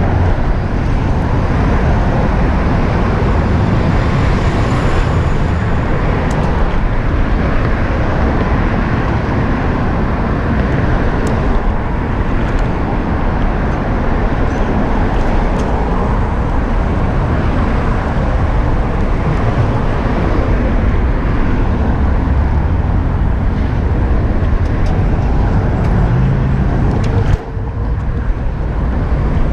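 Steady rush of wind and road noise while riding a Bird electric scooter, heavy in the low end, dipping suddenly in level near the end.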